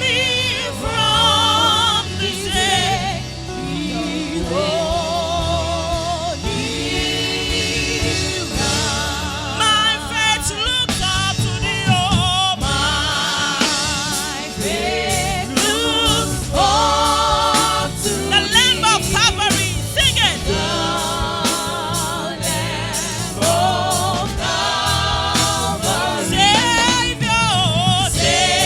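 Gospel worship singing: voices with a wide vibrato, choir-like, over a steady music accompaniment.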